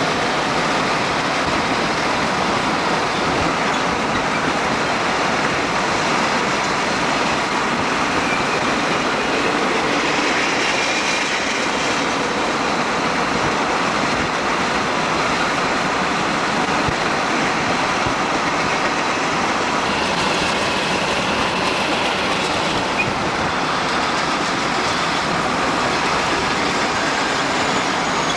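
Santa Fe freight train of boxcars rolling past close by: a steady, loud rumble and rattle of wheels on rail, with faint high wheel squeals now and then.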